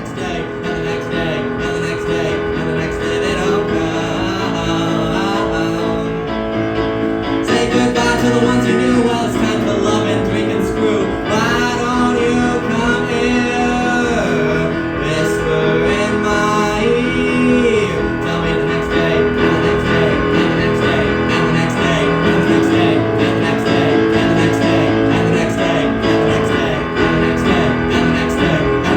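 Music: a show tune sung over keyboard accompaniment.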